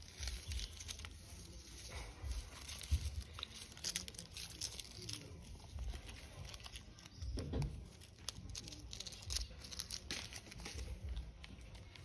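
Dry leaf litter rustling and crinkling, with scattered small clicks, as a long-tailed macaque and her infant pick and shuffle through the leaves on the ground.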